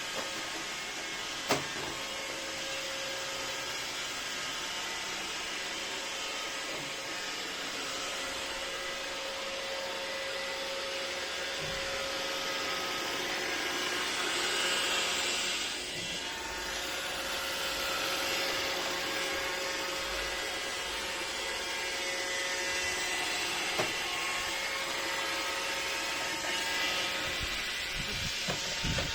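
iRobot Roomba 606 robot vacuum running as it cleans: a steady whirring of its suction motor and brushes with a constant hum, broken by a sharp click about a second and a half in and another near the end.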